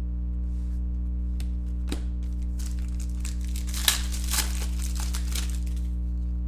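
Foil trading-card pack wrapper crinkling and tearing as it is opened, with a sharp crackle about four seconds in, over a steady electrical hum.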